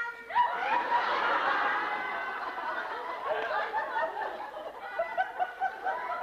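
A group of children laughing and shrieking together, many voices overlapping, beginning suddenly on a short held note and breaking into quick bursts of laughter in the second half.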